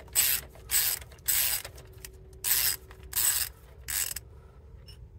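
Socket ratchet clicking in about six short bursts, one with each back-swing of the handle, as the 24 mm grease fitting on a 2014 Yanmar ViO35's track adjuster is unscrewed to let grease out and slacken the track. The clicking stops about four seconds in.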